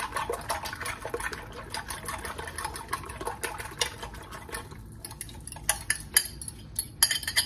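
Eggs being stirred briskly in a glass bowl: a fast, irregular run of clinks of the utensil against the glass, thinning out after about four seconds.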